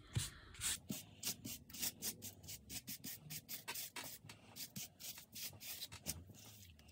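Distress ink pad (Aged Mahogany) rubbed back and forth over damp, crumpled paper: a quick run of soft scratchy rubbing strokes, several a second, as the ink is worked into the creases.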